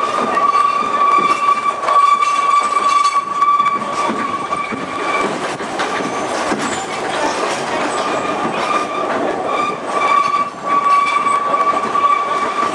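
Small Oigawa Railway trolley train running on a curving line, heard from an open carriage window: a steady high-pitched squeal of the wheels on the rail over the running rumble and the occasional clack of the wheels over rail joints.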